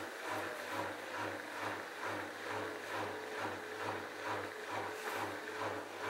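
Bosch front-loading washing machine tumbling its load during a rinse cycle: a rhythmic swish and slosh about twice a second over a steady motor hum.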